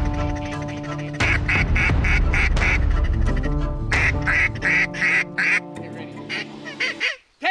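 Series of duck quacks in quick runs of four or five, repeated several times, over background music.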